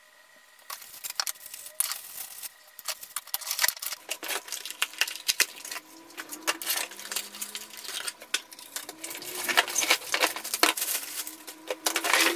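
Rustling and clacking of packaging and hard plastic vacuum parts being handled and lifted out of a cardboard box: a busy run of clicks and crinkles that starts under a second in.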